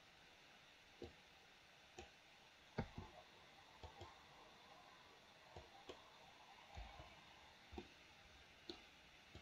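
Faint computer mouse and keyboard clicks: single sharp clicks at irregular intervals, roughly one a second.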